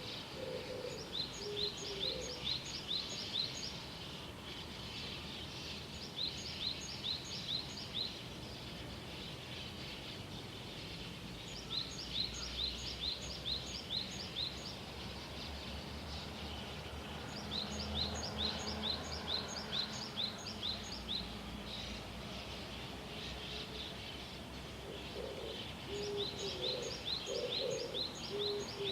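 A small songbird sings a quick phrase of about six to eight repeated high notes, and repeats it every five seconds or so. A dove coos low in the background near the start and again near the end.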